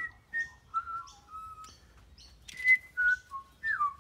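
Birds singing a run of clear whistled notes, two or three a second, some gliding down in pitch, with short high chirps between them.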